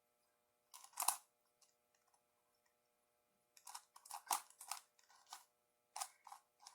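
Plastic speed-cube puzzle being turned by hand: short clacking turns, a couple about a second in, then a quick run of clicks from about three and a half seconds in and more near the end.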